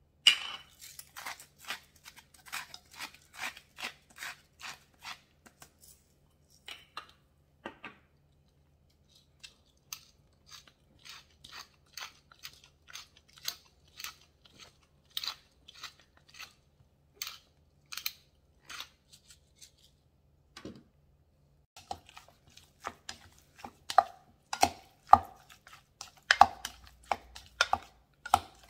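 Hand-twisted salt and pepper mills grinding in runs of rapid gritty crunching clicks. Late on, a spoon knocks and scrapes against a ceramic bowl while stirring the seasoned chicken, making short ringing clinks.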